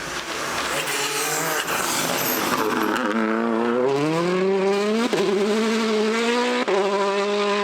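A rally car's engine at high load accelerating hard. Its note climbs and drops sharply twice, at about five seconds and again just before seven seconds, as it shifts up through the gears. The first seconds are a loud rush of tyre noise, with the engine note dipping as the driver comes off the throttle before the pull.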